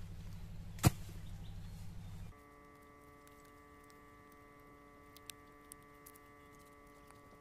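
A long-handled digging tool strikes the earth once with a sharp thud about a second in. After that it is much quieter, with a faint steady hum and a few faint ticks.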